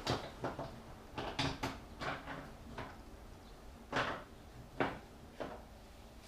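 Irregular clicks and knocks of a socket and torque wrench being handled and fitted on the drain plug, about a dozen over a few seconds, the loudest two about four and five seconds in.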